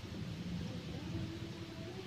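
Steady outdoor background noise with a low rumble; about halfway through, a faint steady drone at one pitch sets in and holds.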